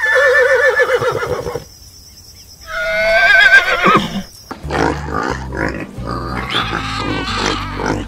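Horse whinnying twice, each a long quavering call that falls in pitch, the second pitched higher. From about halfway, pigs grunt and squeal in a run of short rough calls.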